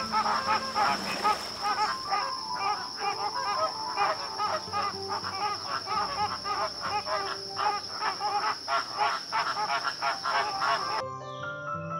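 A large flock of greater flamingos calling, a dense continuous chatter of many overlapping calls, over soft background music. About a second before the end the calls cut off and only the music goes on.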